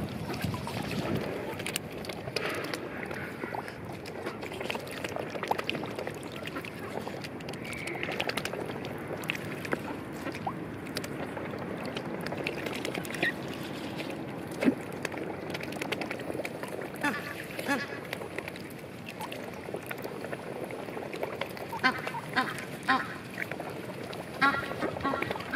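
Young swans feeding from a tray of grain at the water's edge: steady wet dabbling and many small clicks of bills picking through the feed, with a few short bird calls near the end.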